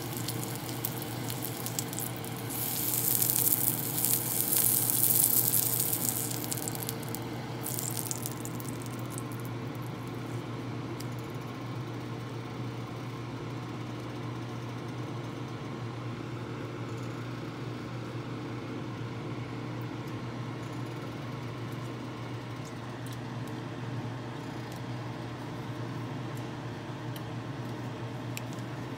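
A small piece of bacon sizzling in hot fat in a non-stick pan: a hiss that swells for a few seconds and dies away about eight seconds in. After that only a steady low hum remains.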